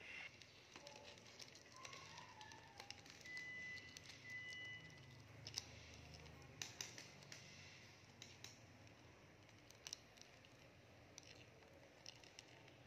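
Near silence: faint room tone with scattered light clicks and taps, and a faint high steady tone held for a second or two about three to five seconds in.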